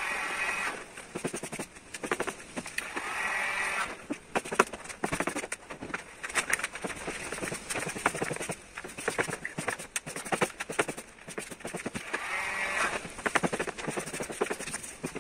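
Vinyl wrap film crackling and rustling as a loose sheet is pulled, lifted and pressed down by hand, with dense irregular clicks. Three short squeaky sounds come near the start, about three seconds in, and near the end.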